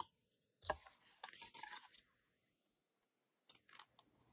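Scissors snipping through heavy cardstock, trimming box flaps at an angle: a few short, crisp cuts, with a quick run of snips in the first half and two more near the end.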